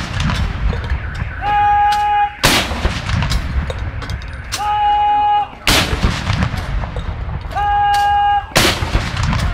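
M5 3-inch field guns firing black-powder blank cartridges in a salute: three heavy shots, one about every three seconds, each with a low rumbling tail. A short steady tone sounds just under a second before each shot.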